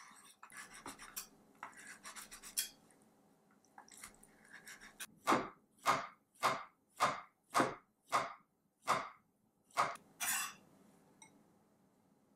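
Chef's knife on a wooden cutting board: quick, light tapping as it dices bacon, then about nine slow, evenly spaced chops as it slices button mushrooms.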